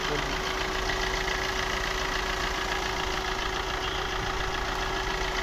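Maruti Swift Dzire VDI's 1248 cc four-cylinder diesel engine idling steadily.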